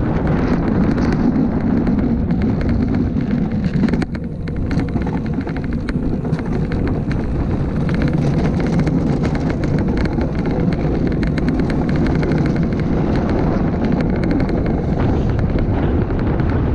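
Luge cart rolling fast down a concrete track: a steady rumble of wheels with many small rattles and clicks, mixed with wind rushing over the microphone. A jolt about four seconds in, after which it is briefly quieter.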